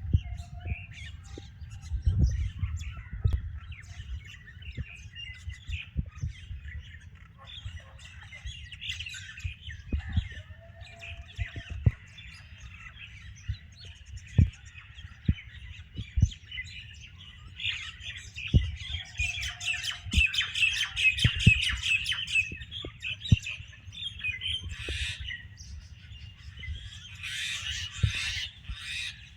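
A group of birds chattering and squawking without pause, busier in two stretches past the middle and near the end, with many short low thumps underneath.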